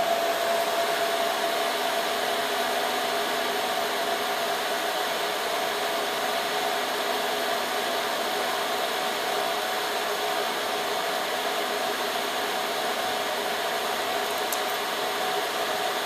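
Dell PowerEdge 2950 rack server running: a steady rush of cooling-fan air with a faint steady hum under it. A faint tick comes near the end.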